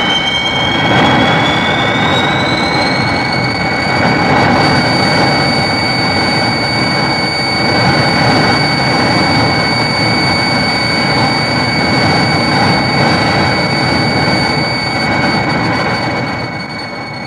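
Rodan sound effect from the 1960s Showa Toho monster films: a long, jet-like rushing roar with a high whine that rises in pitch over the first few seconds, then holds steady, fading out near the end.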